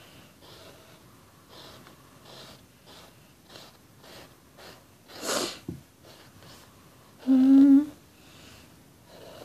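White blackboard chalk scratching faintly on a canvas shoe in short, repeated strokes as spokes are sketched. A short breath comes about five seconds in, and a brief hummed note, the loudest sound, about seven and a half seconds in.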